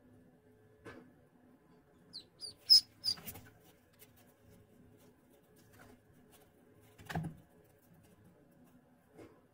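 Ducklings peeping: three short high peeps in quick succession about two seconds in, followed by a brief rustle. A single dull knock comes about seven seconds in.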